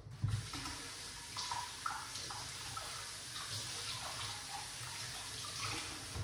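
Water running steadily from a tap into a sink, turned on just after the start and off at the end.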